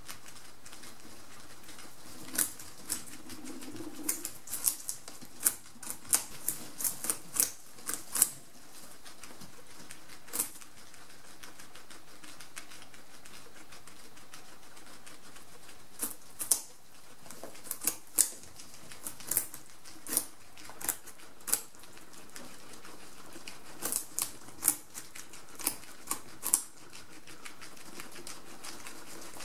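Guinea pigs gnawing and chewing raw pumpkin flesh: irregular clusters of crisp crunching bites and clicks, with a few quieter stretches between the clusters.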